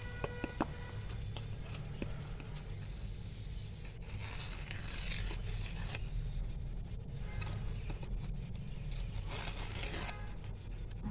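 Sheet of white paper being handled and folded, with two spells of crinkling rustle, one about four seconds in and a shorter one near the end, over a steady low hum.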